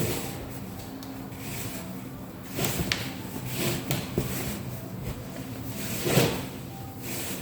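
Chin chin mixture of flour, sugar, egg and baking powder being mixed: irregular scrapes and knocks, the loudest about six seconds in.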